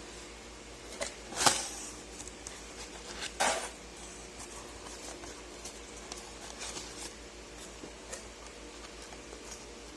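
Packaging being handled by hand during an unboxing: scattered light clicks and taps, with two louder, brief scraping rustles about a second and a half and three and a half seconds in.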